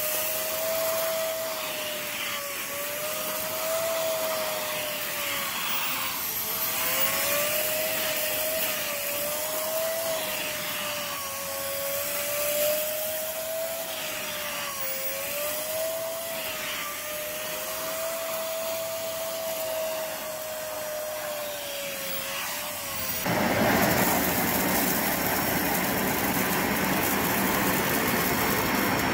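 Cordless stick vacuum running over carpet, its motor whine dipping and recovering in pitch as the head is pushed back and forth. About 23 seconds in, this cuts abruptly to a Dyson Ball upright vacuum, a louder, even rushing sound.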